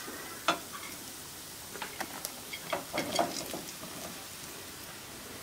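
Thick raw bitter gourd (karela) rounds dropped by hand into a pan of fried onion masala. They make a scatter of light, irregular taps and patters, most of them about two to three seconds in, over a faint steady frying hiss.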